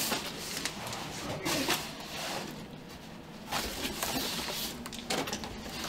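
Cardboard fireworks cartons being handled: a few short scrapes, rubs and light knocks as boxes are lifted, slid and their flaps opened.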